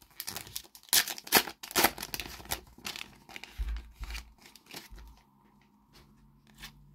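A Panini football-card packet torn open, its wrapper crackling and crinkling for about three seconds, then quieter handling of the cards with scattered ticks and a few low bumps.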